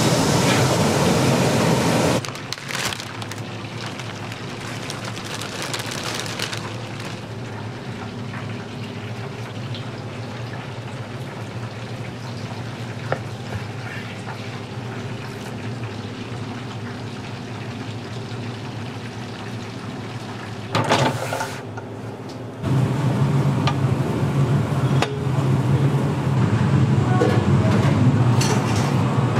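Water sloshing and splashing as a netted pork roll is rinsed by hand in a steel tub of water, stopping about two seconds in. After a quieter stretch, an electric meat slicer's motor switches on about three-quarters of the way through and runs with a steady low hum.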